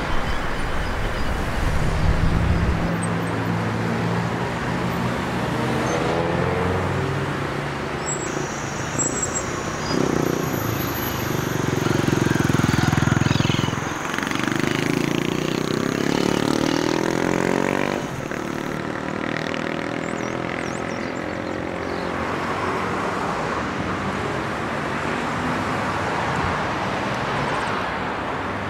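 City road traffic: cars passing one after another, their engine notes rising and falling as they go by, settling into a steadier hum in the last third.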